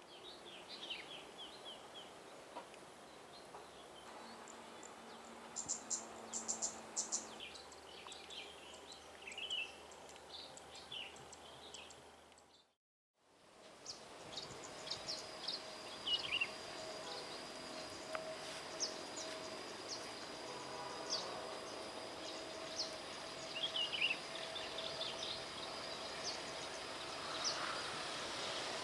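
Outdoor ambience: small birds chirping repeatedly over a low steady background, with a faint high, steady insect whine in the second half. The sound cuts out completely for a moment a little before halfway.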